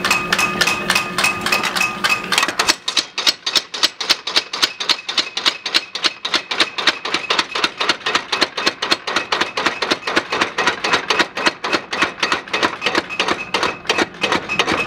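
Mechanical power hammer pounding a red-hot steel knife blank in rapid, even blows, about five a second.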